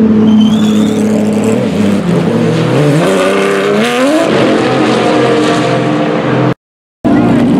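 Race car engines in the pit lane, running steadily at low revs, then rising smoothly in pitch about three seconds in as a car accelerates away, then holding a steady note. The sound cuts out for a moment near the end.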